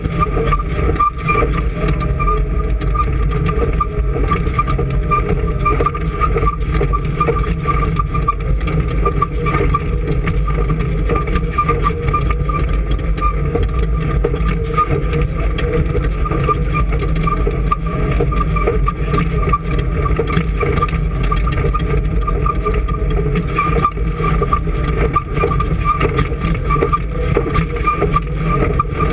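An engine running steadily at a constant speed, with a steady whine near the middle of the range over a low rumble.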